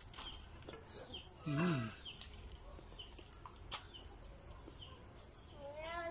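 Small birds chirping now and then, short high chirps that drop in pitch, with a brief low vocal hum about a second and a half in. Near the end a rooster starts a long crow.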